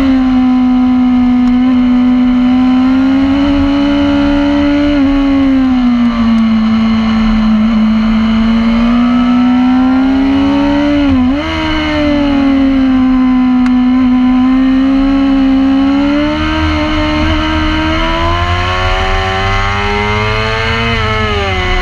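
Racing motorcycle engine at high revs heard from on board, its pitch rising and falling over several seconds at a time as the bike accelerates and slows through the corners, with a sudden brief dip about eleven seconds in. Wind rumble on the microphone underneath.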